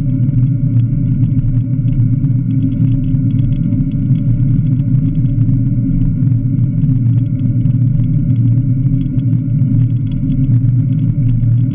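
Steady low rumble of a recumbent cycle rolling along an asphalt highway shoulder: tyre-on-road and wind noise on the bike-mounted camera's microphone, with faint scattered ticks.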